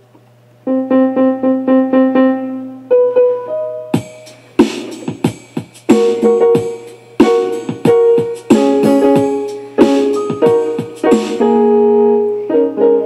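Electronic keyboard played with a piano voice: one note repeated about six times, then a few single notes, then from about four seconds in, clusters of several notes struck together in quick, uneven succession.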